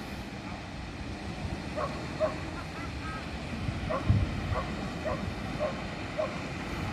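A dog barking repeatedly, about two short barks a second, over a steady low rumble, with one dull thump partway through.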